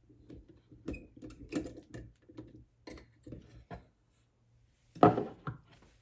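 Small knocks and clicks as a lock cylinder and vise are handled while the lock is taken out of the vise, with one louder knock about five seconds in.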